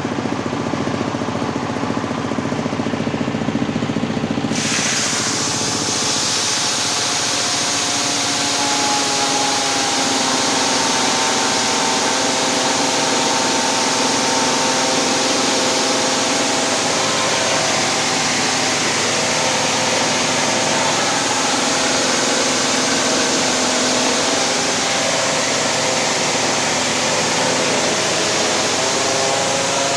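Corn cracking machine running continuously with its engine humming; about four and a half seconds in a loud, dense rushing rattle joins and continues, as the machine works under load.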